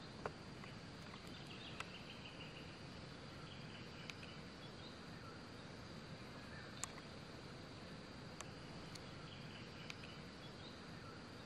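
Faint outdoor bush ambience: a steady high insect drone over a low hiss, with a few short, sharp clicks scattered through; the loudest click comes about a quarter-second in.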